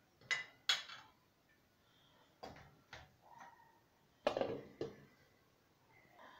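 Kitchenware clinking and clattering in a series of sharp knocks: two within the first second and two more around two and a half to three seconds. Then an enamel lid clatters onto the soup pot twice, about four seconds in, the loudest of them.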